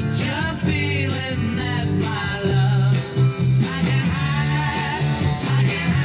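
Rock song with singing and guitar, played back from an 8-track tape cartridge on a Panasonic RS-856 stereo 8-track deck.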